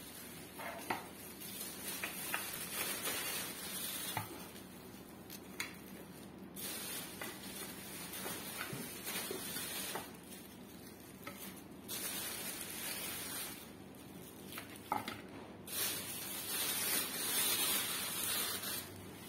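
Plastic mailer bags crinkling and rustling as they are handled and scrunched up, in irregular stretches with a few sharp crackles.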